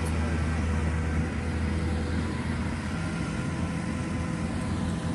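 Inari RG combine harvester's engine running steadily.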